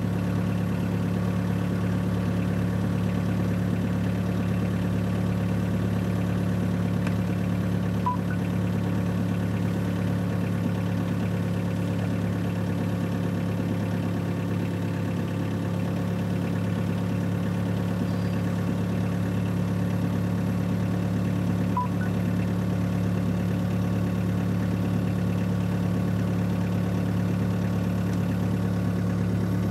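Diesel engine of a Sherp all-terrain vehicle running steadily at low revs, an even, unchanging drone.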